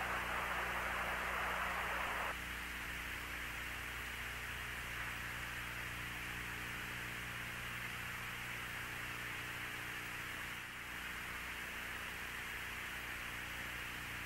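Steady radio-channel hiss with an electrical mains hum under it, on an open air-to-ground communications loop between transmissions. The hiss drops a step about two seconds in.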